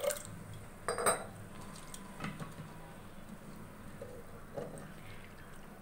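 The last of the water pouring into an aluminium pressure cooker, then a few clinks and knocks of kitchenware being handled: a sharp ringing one about a second in, and another around two seconds.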